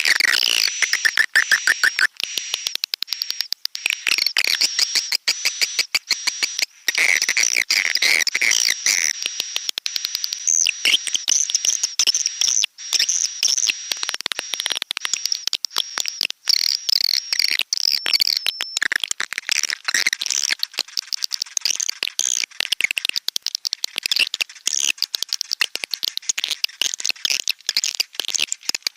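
Recorded swiftlet lure call: dense, continuous high twittering and rapid clicking chirps of edible-nest swiftlets, a mating-call ('birahi') track played to draw swiftlets into a swiftlet house.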